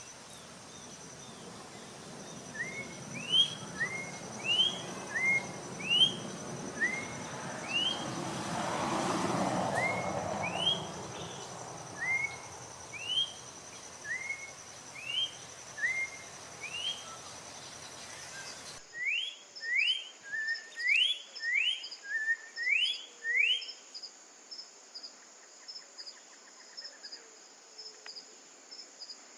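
Orange-backed troupial singing a long series of short, clear, rising whistled notes, about one a second, over a steady high trill of insects. The notes come louder and closer together for a few seconds past the middle, then stop.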